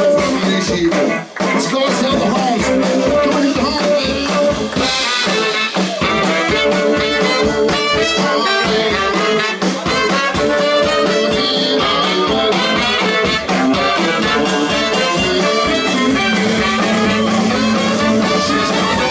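A blues band playing live: electric guitar, drums and a horn section in a loud, steady groove.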